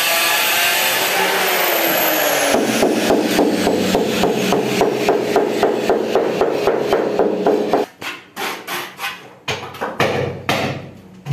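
Hammer tapping a ceramic wall tile to bed it into its mortar, in an even run of about four taps a second, then slower, irregular taps for the last few seconds. The first couple of seconds hold a loud continuous noise with a falling whine.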